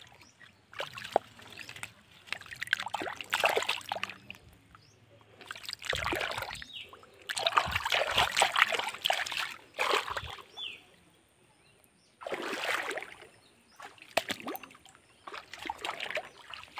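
A hand splashing and sloshing through shallow stream water among rocks, feeling under the stones for fish. The splashing comes in bursts of a few seconds, with a brief lull about two-thirds of the way in.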